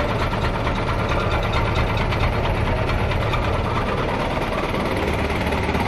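1999 Mahindra Commander jeep's DI diesel engine idling steadily, heard close to its exhaust tailpipe.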